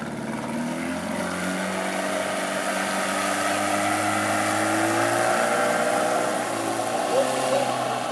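Outboard motor on a small open metal boat running at speed as the boat accelerates away, its steady engine note over the hiss of the wake; it grows louder over the first few seconds.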